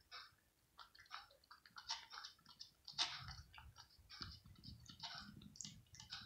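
A cat eating cooked mackerel in gravy from a plastic plate: quiet, irregular wet chewing clicks and smacks, several a second.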